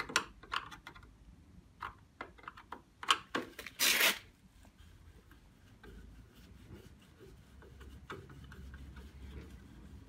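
Phillips screwdriver working short screws out of the plastic end cap of a Hotpoint Aquarius tumble dryer's condenser unit: a few clicks and knocks of plastic, a short scraping rasp about four seconds in, then faint quiet rubbing.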